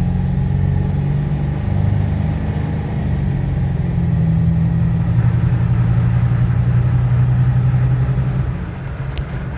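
7.3 Powerstroke diesel's KC300X turbocharger spooling up under acceleration: a high whistle that rises at the start, holds for several seconds over the engine's low drone, and falls away near the end. The turbo is significantly louder now that the up-pipe exhaust leak is fixed and no longer chokes it.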